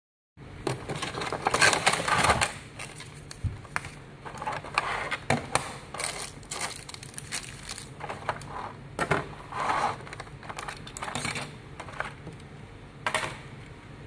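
Clear plastic packaging crinkling and rattling as a toy shark and its remote control are handled and pulled from a plastic blister tray, with irregular clicks and light knocks on the table.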